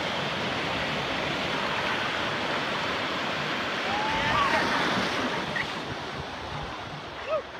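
Small ocean waves breaking and white water rushing through shallow surf close around the microphone, swelling louder about four seconds in, then easing off.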